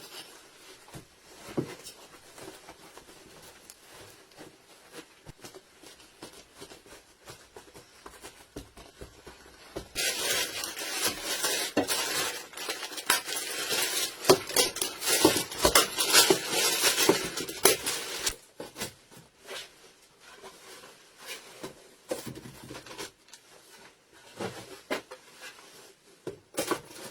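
Kitchen work in a small room: dishes, pots and utensils clinking and knocking, with a steady hiss lasting about eight seconds in the middle.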